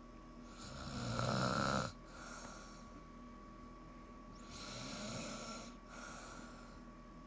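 A woman snoring in her sleep, a grinding snore likened to a broken woodchipper: one loud snore about a second in that cuts off sharply, then a quieter snoring breath about five seconds in.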